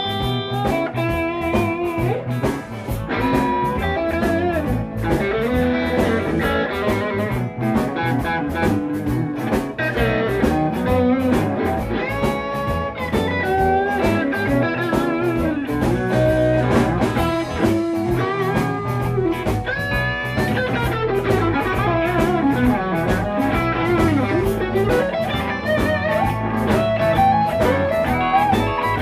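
Live band playing: electric guitars over bass guitar and drum kit, with sliding, bent lead notes.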